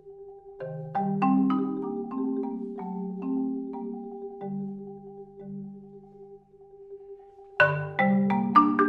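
Solo concert marimba played with mallets: a burst of struck chords and notes a little over half a second in that thins into sparse, decaying low notes over a steady held pitch, then a loud chord attack near the end followed by quick repeated strokes.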